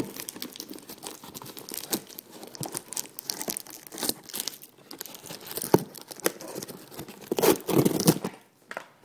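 Plastic packaging crinkling and tearing as a paintball mask is worked out of its wrapping, in irregular rustles and snaps, loudest about seven and a half seconds in.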